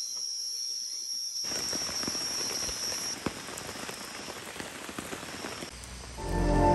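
Rain falling, with many small drops pattering on a surface. A high steady tone runs through the first few seconds, and music comes in near the end.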